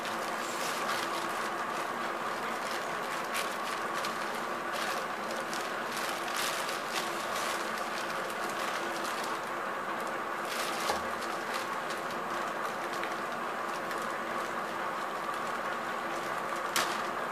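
Plastic courier mailer bag crinkling and rustling in short bursts as it is handled and pulled open, over a steady humming background drone.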